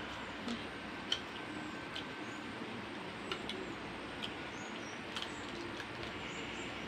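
Scattered sharp clicks and crunches of people biting and chewing raw sour fruit slices, over a steady background hiss. The loudest click comes about a second in.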